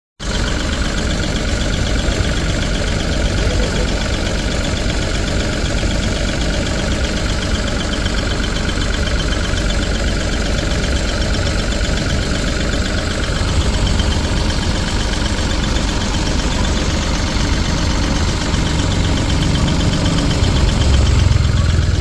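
Force Cruiser's diesel engine idling steadily under the open bonnet, picked up close, getting a little louder near the end.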